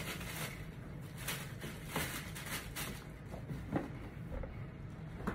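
Sneaker and cardboard shoe box being handled: soft rustling with a few light knocks as a shoe goes into its box and the box is picked up. A low steady hum sits underneath.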